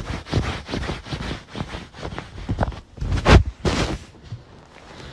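Irregular rustling and scuffing of bedding as a kitten pounces on and wrestles a person's arm on a bed, with a louder brush of noise about three and a half seconds in.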